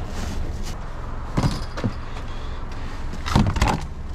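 Hands rummaging through trash in a dumpster: rustling and a few knocks as plastic drink bottles are pulled out and handled, strongest about a second and a half in and again near the end. A steady low hum runs underneath.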